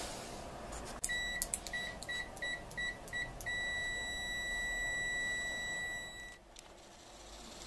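Multimeter continuity beeper sounding as the probes touch a starter motor's armature: a quick run of short beeps, then one steady beep held for nearly three seconds before it stops. The beep signals an unbroken circuit.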